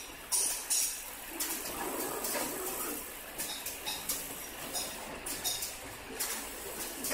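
Automatic bottle screen printer cycling: several short, sharp hisses of compressed air from its pneumatic cylinders and valves, over the machine's steady mechanical running noise.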